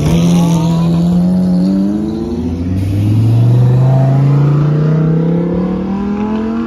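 Lamborghini Huracán 5.2-litre V10 engines accelerating past, their engine note climbing steadily in pitch. A second car's engine rises from low to high from about two and a half seconds in.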